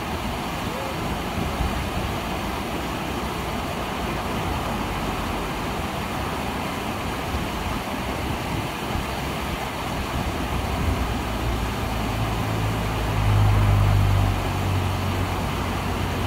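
Ara Falls, a man-made waterfall, rushing steadily down rock ledges. About eleven seconds in, a passing motor vehicle's low engine hum swells, peaks and fades.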